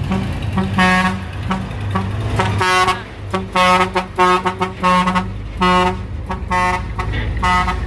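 Truck horn sounded in a rapid series of short blasts of uneven length, over the truck's engine running.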